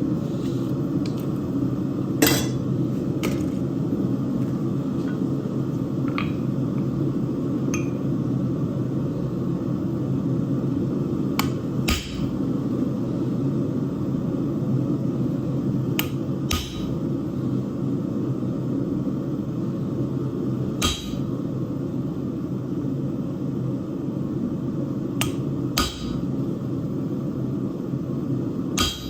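Blacksmith's hammer striking steel on an anvil, single blows and pairs every few seconds with a short ring after each, over a steady low rumble.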